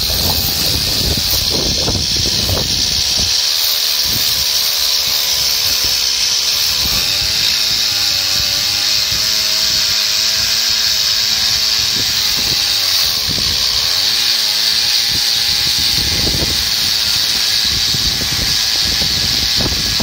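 A big two-stroke chainsaw on an Alaskan chainsaw mill ripping lengthwise through a large ash log, running loud and steady at full throttle under load, its engine pitch wavering a little as the cut goes on.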